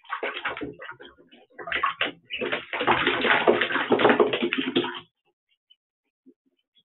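Two-week-old ducklings splashing and flapping in a shallow dish of water: short bursts of splashing, then a few seconds of heavy continuous sloshing and spattering that stops about five seconds in.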